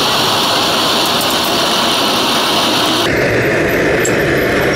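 Steady, loud mechanical drone like an engine running, with no distinct strikes. Its tone changes abruptly about three seconds in.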